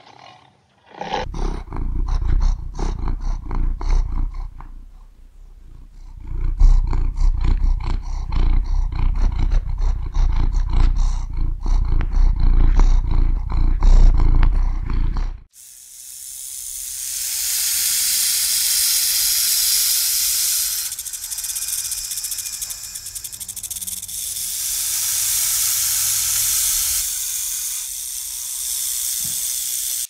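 Big cat growling and roaring deeply in a run of rough pulses for about fifteen seconds. It cuts off abruptly and a snake's hiss follows, rising and falling in several long swells.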